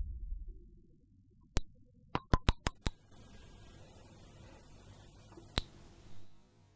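Ultrasonic animal repeller clicking: a single sharp click, then a quick run of five clicks about two seconds in, and another single click later. A faint high hiss lies between them.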